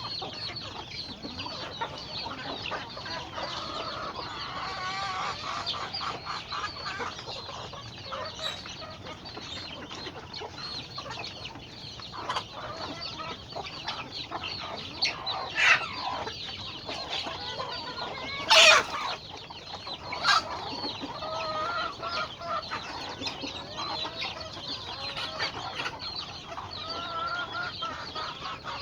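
Chickens clucking continuously, with three louder, sharper calls a little past the middle.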